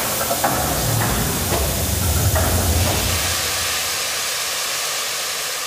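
Steam hissing steadily as it vents from coal-fired Lancashire boilers, with a low rumble beneath it for the first few seconds. The hiss eases slightly near the end.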